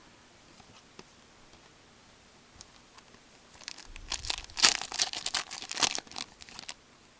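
Foil hockey card pack being torn open and its wrapper crinkled. A few faint clicks come first, then a burst of tearing and crinkling about four seconds in that lasts about three seconds.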